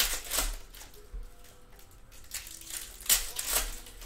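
Foil wrapper of a trading-card pack crinkling and tearing open in the hands: a burst of crackling at the start, then a longer run from a little past two seconds in to near the end.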